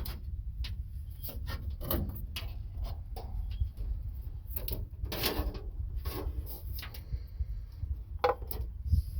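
Irregular rubbing, scraping and light knocks as old wiring is handled and pulled out of a truck.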